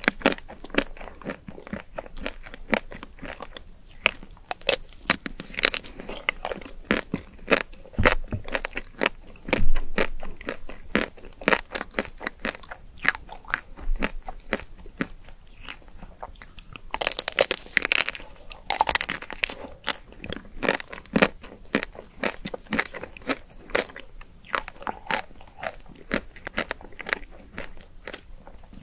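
Biting and chewing a pink chocolate-coated ice cream bar, close to the microphone: the hard chocolate shell cracks and crunches in many quick, sharp crackles, with a louder run of crunches about two-thirds of the way through.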